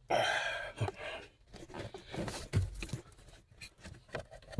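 Plastic scraping and clicking as the Toyota Sienna's HVAC blend door lever is worked back and forth by hand to test it: a loud scraping rustle for about a second, then scattered clicks and scrapes. The lever moves freely, so the door is not stuck.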